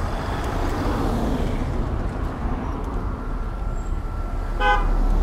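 Street traffic noise with a steady low rumble, heard from a road bike riding in city traffic behind buses. A brief horn-like toot sounds near the end.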